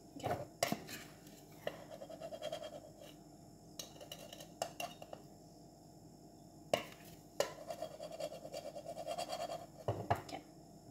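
A metal spoon clinking sharply against a glass and a tin several times, with two stretches of quick scraping strokes as powdered drink mix is scooped and stirred.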